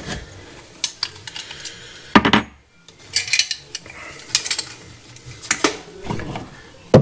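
Metal hand tools clinking and knocking as they are handled. There are several sharp clinks, with one heavier knock about two seconds in.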